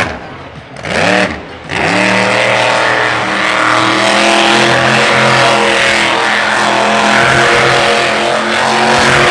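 Monster truck's supercharged V8 engine: a couple of short revs in the first second or two, then a loud, sustained high-rev run that holds steady.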